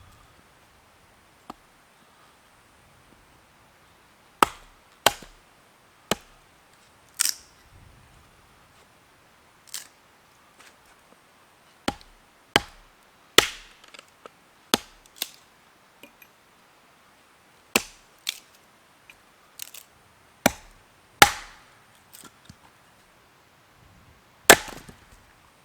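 Wood being chopped with a blade: a series of sharp, irregular strikes, starting about four seconds in.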